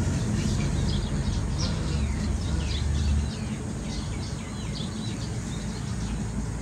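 Small birds chirping repeatedly, short high calls one after another, over a low steady rumble that drops away about halfway through.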